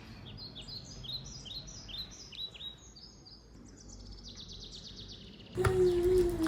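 Small birds chirping: a run of quick high downward chirps about twice a second, then a fast high trill. Near the end a louder low steady tone with crackling cuts in.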